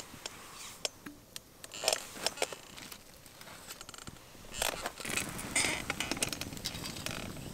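A metal camping pot set down over a campfire, with a few light knocks and clinks, then from about halfway a louder spell of scraping and crinkling on aluminium foil mixed with the fire's crackling pops.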